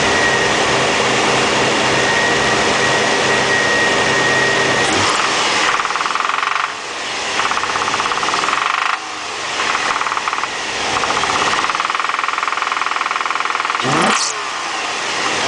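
2003 Infiniti G35's VQ35DE 3.5-litre V6 idling steadily, then revved up and down several times from about five seconds in, with one quick sharp rev near the end. The owner suspects a rod knock.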